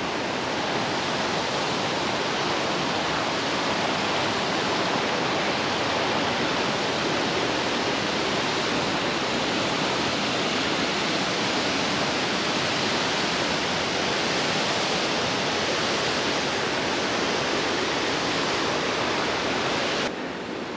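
River rapids rushing: a steady, dense noise of fast-flowing water that drops suddenly in level near the end.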